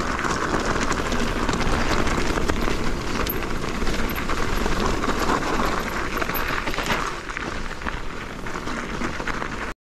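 Electric mountain bike rattling over a rocky trail descent, with tyres crunching on rock and wind rushing over the microphone; the sound cuts off suddenly just before the end.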